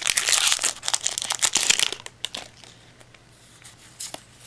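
Foil wrapper of a Yu-Gi-Oh booster pack crinkling as it is torn open, dense and loud for about two seconds, then much quieter with a few faint rustles and clicks as the cards are handled.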